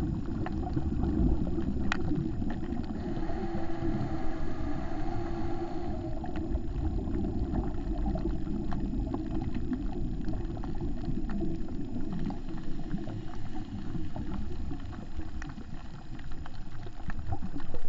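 Underwater sound through a GoPro's waterproof housing: a muffled, steady low rumble with scattered sharp clicks, and a stretch of bubbling about three to six seconds in.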